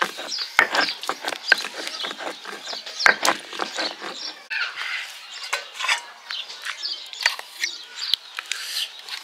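A stone grinding roller rubbed back and forth over a flat grinding stone, crushing a wet pickle paste: quick, irregular gritty scraping strokes that thin out about halfway through.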